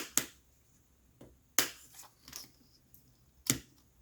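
Sharp, irregular clicks and taps of small hand tools and parts against a laptop's internals while the Wi-Fi card's tiny antenna connectors are worked loose. There are about half a dozen clicks, with the loudest at the start, about one and a half seconds in and about three and a half seconds in.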